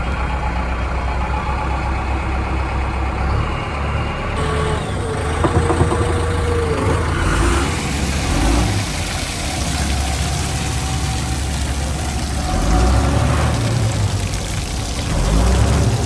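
Diesel engine of a JCB backhoe loader running while it works, its level swelling a few times.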